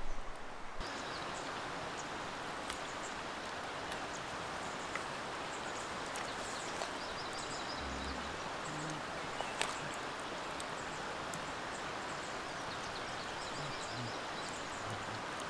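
Steady rushing of a flowing stream, with small birds chirping in short repeated phrases now and then.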